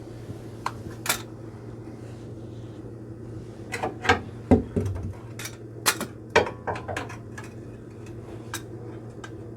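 Sharp metallic clinks and knocks, a cluster of them near the middle, over a steady low hum: tools and a pry bar being worked against a Lada Vesta's front suspension while it is checked for play in search of a knock.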